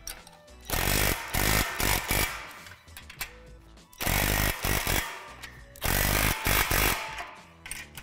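Cordless impact driver running in three short bursts, each about a second long, driving bolts into cap nuts to secure the support tubes to a steel base frame. Background music plays underneath.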